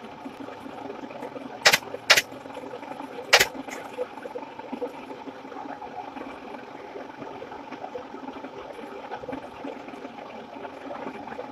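Three sharp, loud snaps against a steady mechanical hum: two close together about a second and a half in, and a third about a second later.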